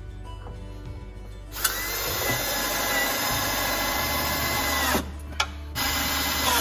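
Cordless drill driving self-tapping screws through a battery mounting bracket into a golf cart's battery tray. The motor whines steadily for about three seconds, stops, then runs again briefly near the end.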